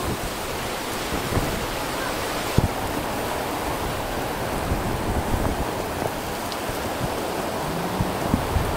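Heavy rain falling steadily, an even hiss throughout, with a few light knocks, one sharp one about two and a half seconds in.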